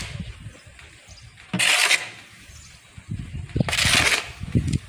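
Shovel scooping and tossing damp sawdust compost onto a heap: two scraping, hissing strokes about two seconds apart, with dull knocks between them.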